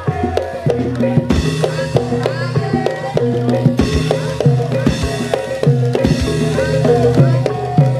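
Live Javanese jaranan music: drums beating a steady, driving rhythm over sustained, ringing gamelan tones.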